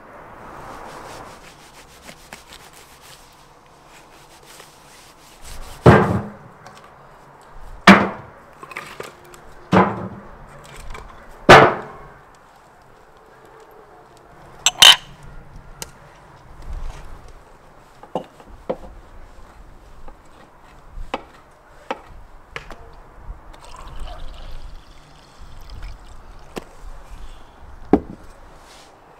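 Four heavy knocks about two seconds apart, then a sharp crack and scattered lighter knocks and clinks.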